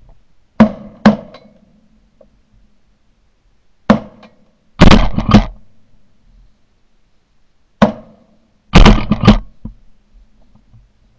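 Shotguns firing in three volleys about four seconds apart, each of two to five sharp, very loud shots.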